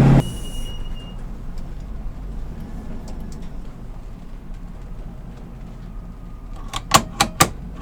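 Truck engine running steadily, a low even sound. About seven seconds in there is a quick run of four sharp clicks.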